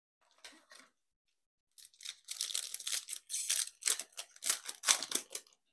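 Foil trading-card pack wrapper being torn open by hand: a couple of faint rustles, then about four seconds of crackling, crinkling tearing.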